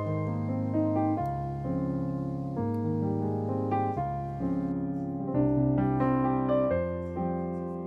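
Soft background piano music, slow notes and chords.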